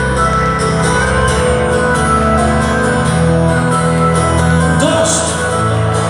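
Live rock band playing a song's instrumental introduction, with guitar, bass and a steady beat; a singer comes in near the end.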